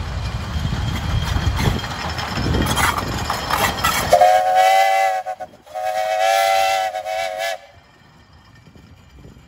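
The Rock River Cannonball narrow-gauge steam locomotive running close by with a rough rumble and knocking, then its steam whistle blowing two blasts, the second longer, about four seconds in, ending abruptly.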